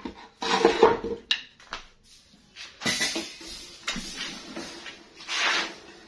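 Handling noise: a few short knocks, scrapes and rustles as two cut wooden broomstick perches are moved about over a wire bird cage, the loudest about half a second in, about three seconds in, and near the end.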